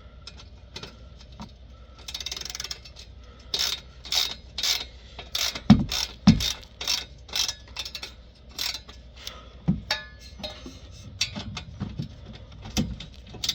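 Hand ratchet wrench clicking in repeated strokes as a 10 mm bolt is worked, with a few dull knocks a few seconds in.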